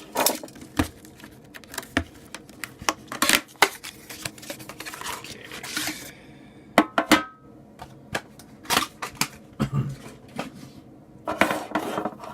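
Trading card packaging being handled and opened by hand: scattered sharp clicks, crinkles and rustles.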